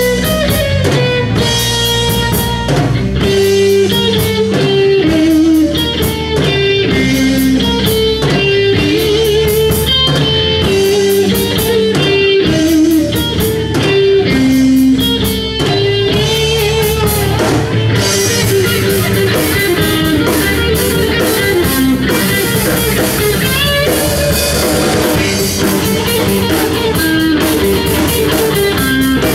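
Live rock band playing: an electric guitar, a Les Paul-style, carries a melodic lead line with bends and vibrato over bass and drum kit. The cymbals get louder and busier a little past the middle.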